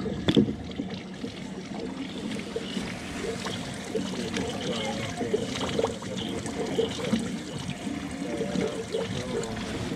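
Water trickling and gurgling without a break, with a short knock about a third of a second in.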